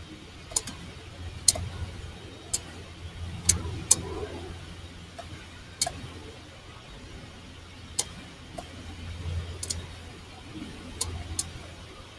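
About a dozen sharp, irregular clicks, a second or so apart, over a low, unsteady hum.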